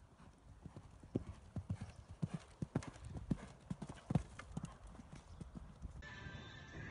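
Hoofbeats of a Connemara mare cantering on a sand arena: a quick, uneven run of thuds, loudest around the middle. About six seconds in they give way to music.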